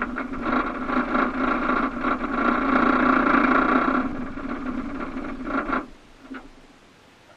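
Honda BF9.9 four-stroke outboard motor running steadily. It eases off about four seconds in and stops about six seconds in.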